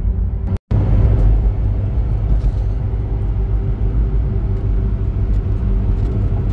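Cabin rumble of a car with a BMW N54 twin-turbo inline-six cruising at a steady speed: low engine drone mixed with road noise. The sound drops out completely for an instant just over half a second in.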